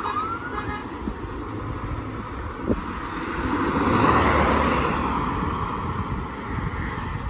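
A short rising siren note at the start, then a Vauxhall Astra police response car driving past at speed, its engine and tyre noise swelling to loudest about four seconds in and fading as it goes away.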